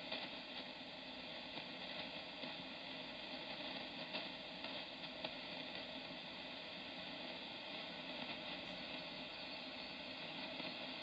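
Steady hiss of 20 m band noise from a Kenwood TS-590SG HF transceiver, tuned to an empty upper-sideband voice frequency with AGC off and played through an extension loudspeaker. Faint crackles come and go in the hiss.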